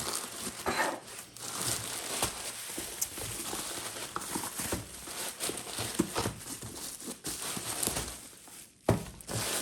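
Cardboard and plastic packaging rustling and crinkling as a box is unpacked by hand, with many small clicks and a sharper knock near the end.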